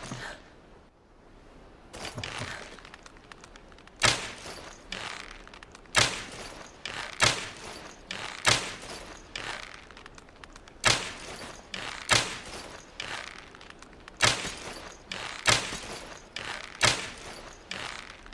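Longbow being shot repeatedly: a series of about a dozen sharp thwacks, each a second or so apart, after a quiet first few seconds.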